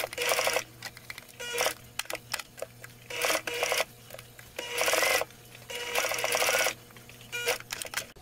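Electric sewing machine stitching in about six short runs, each lasting under a second, with pauses between them, sped up, over a steady low hum.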